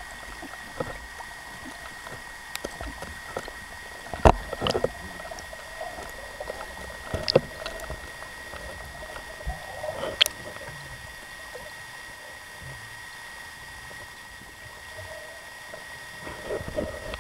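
Underwater sound picked up through an action camera's waterproof housing on a speargun during a freedive. A muffled water noise bed runs with a steady faint high whine, and a few sharp clicks and knocks stand out, the loudest about four, seven and ten seconds in.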